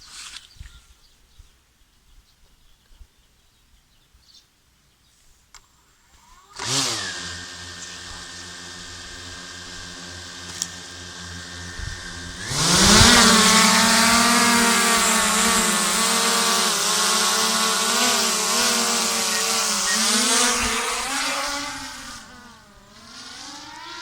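DJI Mavic Air 2 quadcopter's motors start about six seconds in and spin steadily at idle. About six seconds later the propellers speed up to a loud buzzing whine for takeoff, its pitch wavering. It dips and rises again near the end.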